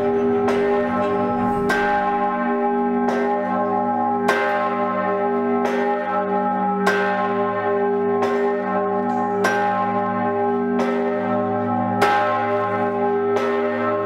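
The Seggauer Liesl, the 16th-century great bell of Seggau Castle and the largest historic bell in Styria, swinging and ringing: about eleven clapper strokes, one roughly every 1.3 seconds, over a long, unbroken hum of its overlapping tones.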